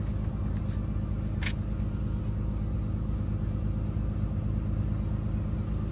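Steady low hum of an idling engine heard inside the tool truck's box. There is a brief soft rustle about one and a half seconds in.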